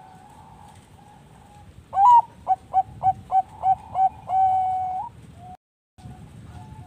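Zebra dove (Bangkok perkutut) singing: a loud rising opening note, then six short quick coos and a long held final note, with other doves cooing faintly behind it. The sound drops out completely for about half a second near the end.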